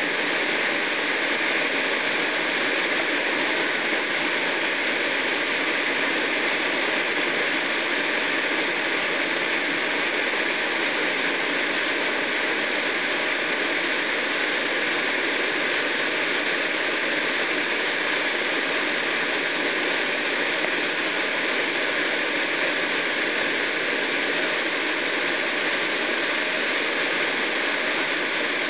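A 10 m waterfall's steady, unbroken rush of falling water.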